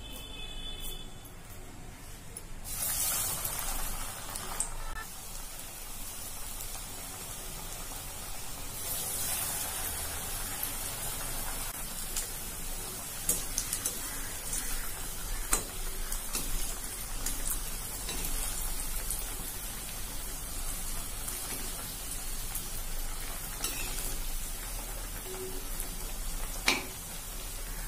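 Paruppu vadai (spiced chana dal fritters) deep-frying in hot oil in a kadai: a steady sizzle that flares up about three seconds in and again about nine seconds in as more fritters go in. A few sharp metal clicks of a slotted spoon against the pan.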